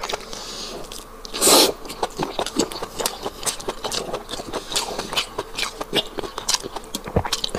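Close-up chewing of soft, chewy beef tripe: a steady run of wet mouth clicks and smacks. There is one short, louder, hissy burst about a second and a half in.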